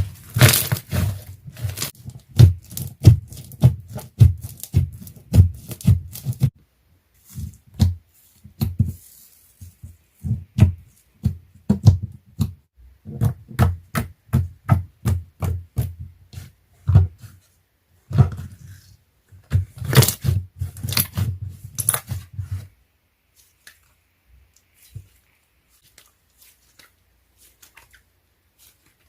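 Slime being pressed and squished by hand: a quick run of sticky clicks and soft thumps, several a second with short pauses, stopping about twenty-two seconds in.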